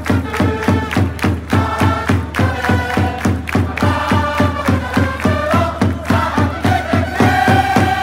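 Japanese pro baseball cheering section playing a fight song: trumpets over a steady drum beat of about three to four strokes a second, with the crowd singing and chanting along.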